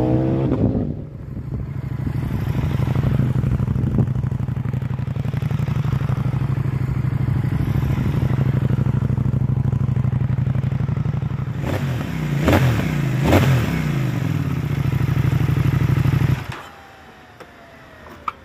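CFMoto 800NK's 799cc parallel-twin engine running, its revs falling at the start and then settling into a steady low note. A couple of quick rises and falls in pitch come about twelve to thirteen seconds in, and the sound stops abruptly about sixteen seconds in.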